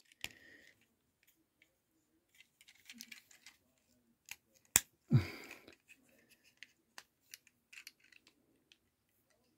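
Hard plastic parts of a Transformers Studio Series 86 Brawn action figure clicking and snapping as it is handled and pushed together into vehicle mode, with tabs being pressed into place. Scattered small clicks, one sharper snap about halfway through, followed at once by a short grunt of effort.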